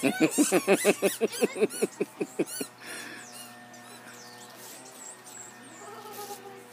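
A dog chomping on a squeaky tennis-ball toy: a rapid run of about a dozen high squeaks, some five a second, that stops after about two and a half seconds.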